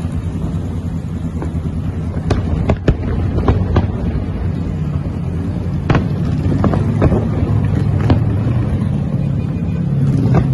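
Street traffic running close by, with the steady low hum of car engines, while aerial fireworks go off over the city in scattered sharp bangs. A nearby engine grows louder near the end.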